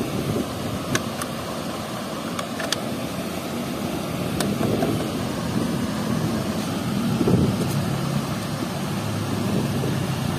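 Steady rush of water flowing through a weir's sluice gates, with a few light clicks early on from handling the plastic bottle trap.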